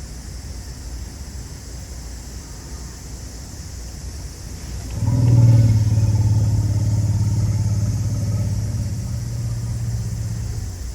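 Asian elephant giving a long, deep growl that sounds like a motorbike engine. It starts about halfway through, holds one low pitch for about six seconds and slowly fades.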